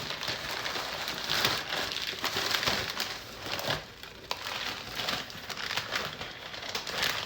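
Plastic packaging crinkling and crackling in long bursts of handling as a package is opened, with brief lulls about a second and about four seconds in.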